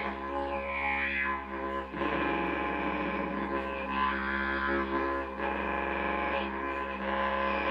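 Didgeridoo playing a continuous drone, its tone sweeping up and down as the player reshapes it, with brief dips in loudness about one and two seconds in.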